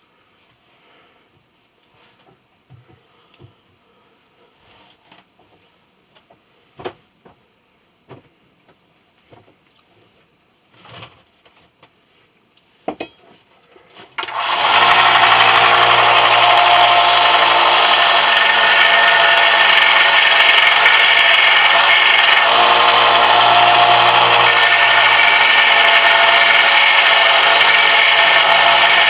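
A few light clicks and knocks of handling, then about halfway through an electric power tool starts and runs loudly and steadily, most likely a sander grinding the brass piece.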